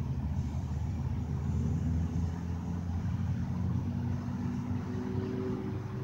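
Truck engine running at low revs as it slowly tows a loaded flatbed trailer across grass: a steady low hum whose tones drift slightly higher near the end.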